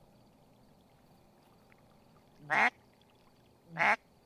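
Two loud, short duck quacks, about a second and a half apart.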